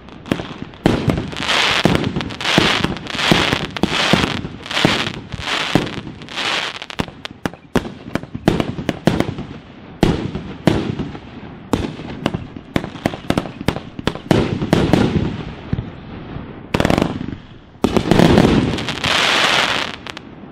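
A 1.2-inch 49-shot fireworks cake firing a rapid string of shots: sharp bangs from the launches and bursts, and crackling from the crackle-effect shells after many of the breaks. The last shots go off just before the end.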